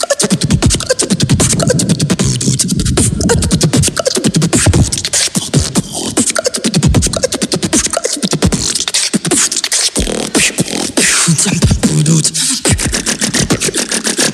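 A human beatboxer performing: a fast, continuous run of mouth-made percussive sounds, with low thuds, sharp clicks and hissing noises, and a short low hummed note about twelve seconds in.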